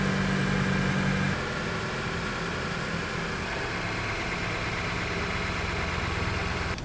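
Honda Civic Si's 1.5-litre turbocharged four-cylinder engine idling with a steady hum, which drops a little in level about a second and a half in.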